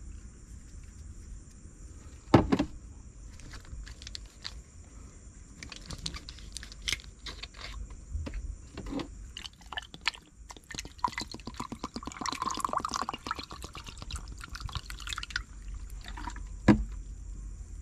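Bottled milk tea poured into an enamel mug of ice cubes, gurgling for about five seconds in the second half, with scattered clicks of ice and handling before it. Two sharp knocks, about two seconds in and near the end, are the loudest sounds.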